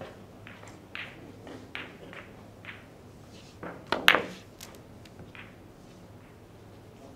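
Billiard shot on a carom table: the loudest event, about four seconds in, is a cue tip striking the cue ball and balls clacking together, followed by a couple of lighter ball clicks. A few faint clicks come before it.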